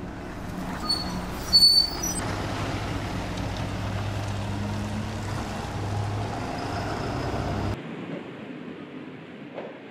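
Hybrid non-step city bus pulling away past the listener, its engine running with a steady low drone. A short, loud, high-pitched burst comes about a second and a half in. Near the end the sound cuts off suddenly to quieter street background.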